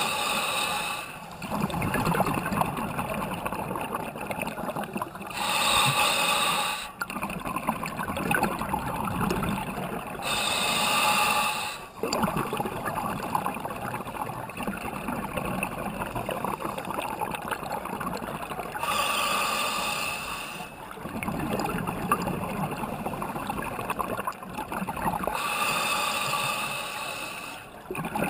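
Scuba diver breathing through a regulator underwater: a hissing inhale of a second or two, then several seconds of bubbling, gurgling exhaust, repeating about five times in a slow, even rhythm.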